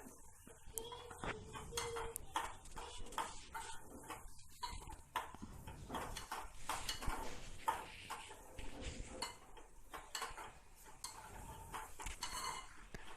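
Spatula stirring fried bitter gourd and onions in an iron kadai, with irregular clinks and scrapes against the pan.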